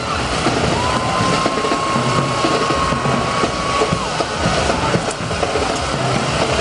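Loud parade street noise: a steady din of vehicle engines running. A single long, steady high tone sounds for about three seconds, starting just after the beginning.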